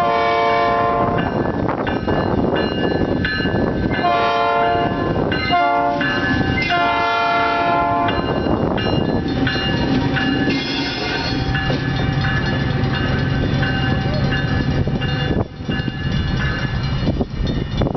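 Northwestern Pacific diesel locomotive 2009 blowing its air horn in the grade-crossing pattern: long, long, short, long. After the horn its diesel engine runs steadily as it rolls past.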